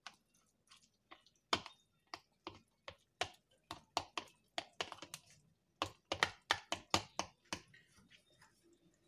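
Metal spoon tapping and scraping against the steel pot and the plastic canning funnel while packing thick pickle-soup mix into a glass jar: an irregular run of sharp clicks, thickest past the middle.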